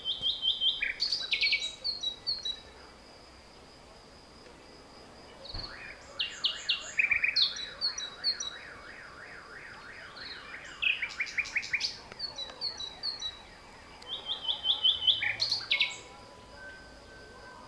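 Songbirds singing: three bouts of quick repeated high chirps and trills with short pauses between them, one bout in the middle holding a long rapid run of lower rising-and-falling notes.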